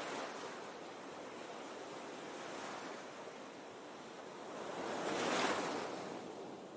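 Waves washing in, a rushing noise that swells and fades, loudest about five and a half seconds in.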